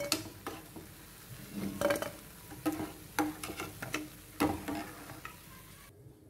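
Jalebis frying in hot oil with a steady sizzle, while a metal slotted spoon knocks and scrapes against the pan several times as they are lifted out. The sizzle cuts off suddenly near the end.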